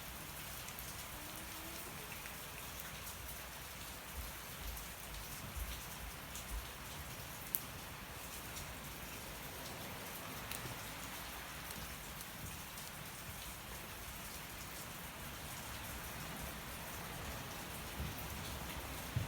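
Steady rain falling, with a wood fire crackling beneath it and a few sharp pops.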